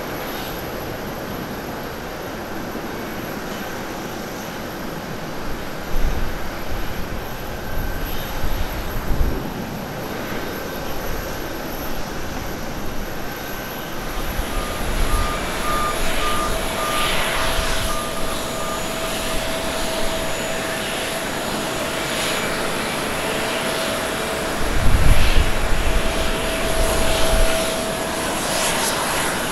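Jet airliner engines: a Boeing 737-800 climbing out at takeoff power, then, after a cut, a Boeing 787 on the runway. The sound is a steady engine roar with low rumbles now and then, and a steady whine comes in about halfway.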